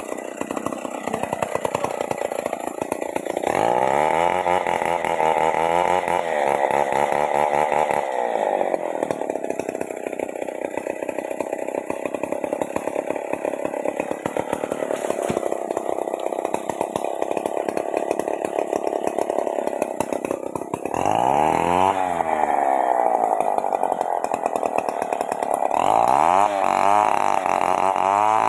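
Stihl 381 two-stroke chainsaw running at high revs while cutting mahogany. The engine speed rises and falls several times, and it settles lower and steadier through the middle stretch.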